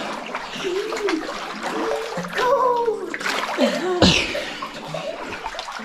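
Water sloshing and splashing as people wade through a pool, with short stretches of voices now and then and a louder splash about four seconds in.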